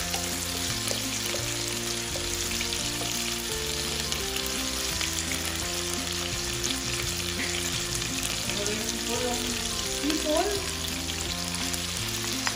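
Chicken pieces with garlic and onion sizzling in hot oil in a non-stick pot, stirred now and then with a wooden spatula.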